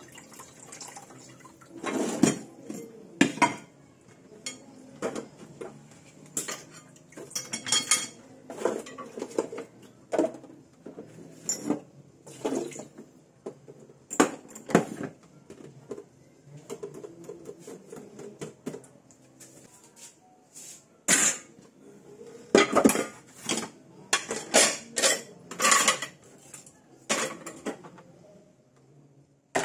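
Dishes and cutlery being handled in a kitchen: irregular clinks and clatters of crockery and metal, with a run of louder clanks in the last third.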